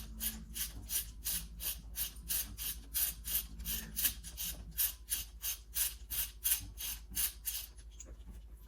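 Ratchet wrench clicking steadily, about three to four clicks a second, as a spark plug is backed out of the engine with a socket on a long extension; the clicking stops near the end.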